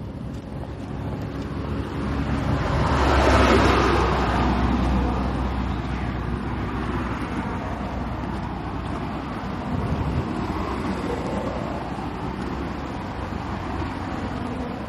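Road traffic: a vehicle passes, swelling up and fading away about three to four seconds in, and a smaller one passes around ten seconds in, over a steady low traffic rumble.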